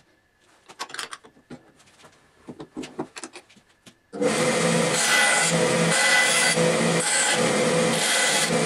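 A few faint clicks and knocks, then about four seconds in a bandsaw cuts into a small piece of aluminium sheet: a loud, steady sawing noise with the hum of the saw's motor underneath.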